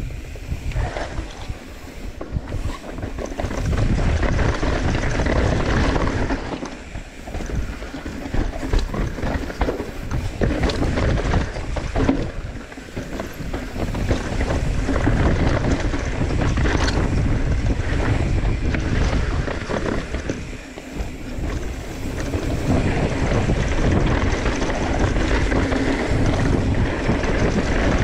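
Wind rushing over the camera microphone as a mountain bike descends a dirt trail, with its tyres rolling over dirt and rock and scattered knocks and rattles from the bike over bumps.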